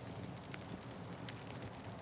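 Wood fire crackling: a steady low rumble of burning with scattered sharp pops and crackles, a few each second.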